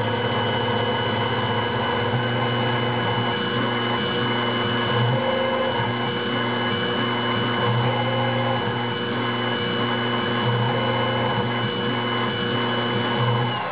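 Taig CNC mill running a program, spot-drilling Delrin: the spindle motor gives a steady high whine over a lower hum that swells and fades every second or two as the machine moves. Right at the end the spindle starts to wind down, falling in pitch.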